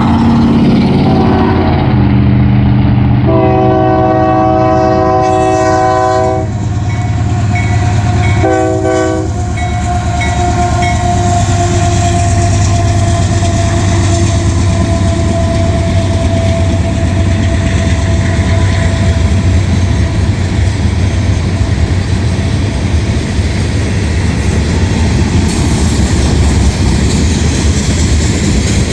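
Union Pacific diesel locomotive's multi-chime air horn sounding several blasts in the first ten seconds, the longest about three seconds, then a short one. After that the locomotives and a long manifest freight roll past with a steady engine rumble and the clickety-clack of wheels on rail joints.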